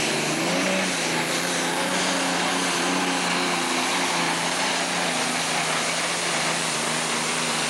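Super Stock pulling tractor's turbocharged diesel engine running flat out under load as it drags the weight-transfer sled. The engine note holds steady over a broad roar.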